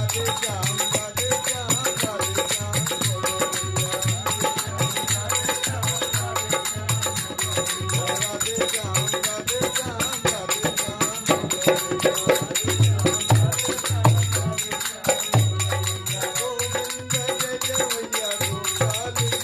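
Devotional bhajan music: a wavering melody line over a steady low drum beat and busy, continuous high percussion.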